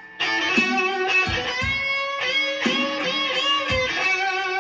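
Electric guitar, a Stratocaster-style solid-body, played as a slow blues lead with bent notes. It comes in loudly about a quarter second in after a brief pause.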